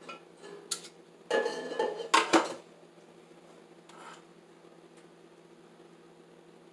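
A spoon scraping and knocking against a stainless-steel mixing bowl while batter is scooped out: a few light clicks, a scrape, then the loudest sharp knocks about two seconds in, and a faint scrape near the middle.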